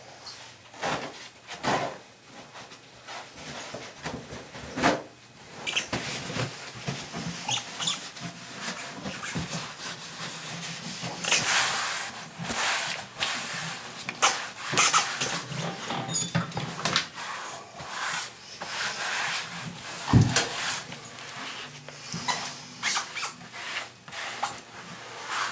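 Irregular knocks, clunks and scraping from hands-on work, busier in the middle, with one heavy thump about twenty seconds in.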